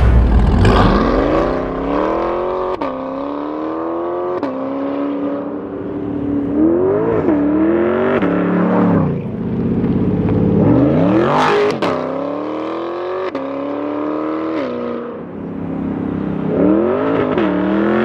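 Chevrolet Corvette Stingray C8's 6.2-litre LT2 V8 through an aftermarket exhaust, accelerating hard: its pitch climbs and then drops suddenly at each quick gear change, several times over, as the car drives around.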